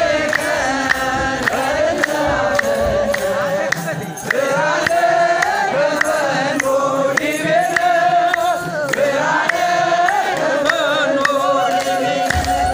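A large group of men singing Ethiopian Orthodox liturgical chant (the Easter mahlet) together, with rhythmic hand clapping at about two to three claps a second.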